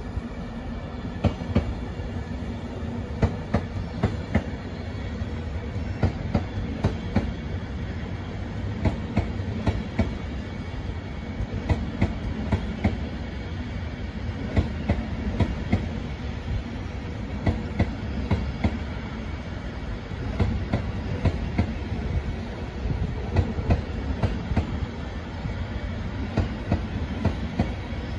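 Long passenger train rolling slowly past, its wheels clicking over rail joints in small repeated clusters above a steady low rumble.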